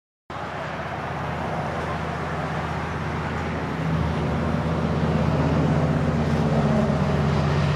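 Diesel engine drone of an approaching Amtrak F59PHI locomotive hauling a passenger train, a steady low hum that grows louder from about halfway through.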